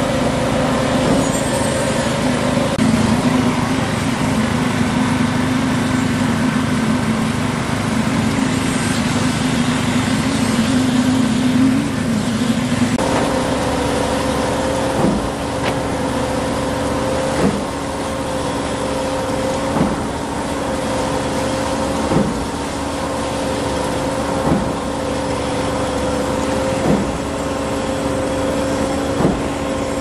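Engines running steadily at a concrete pour: the small petrol engines of poker vibrators and the concrete pump. From about 13 seconds in, the pump's engine carries a regular knock roughly every two and a half seconds, the pump's pistons changing stroke as it pushes concrete up the delivery line.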